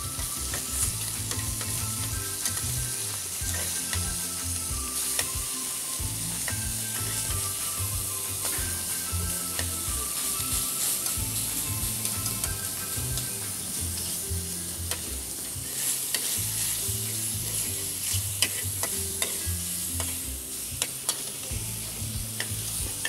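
Pork bacon sizzling steadily as it fries in a little oil in a pan, with occasional sharp ticks.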